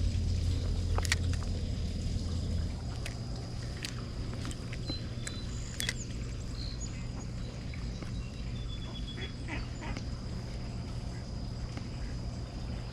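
Geese calling now and then with short honks over a steady outdoor background, with a few sharp clicks; a low hum fades out about two seconds in.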